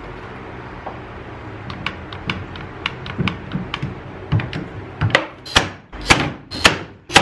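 Hand pop-rivet tool setting rivets in an aluminium seat-mount plate. Light clicks and knocks at first, then about five loud, sharp snaps roughly half a second apart over the last two seconds.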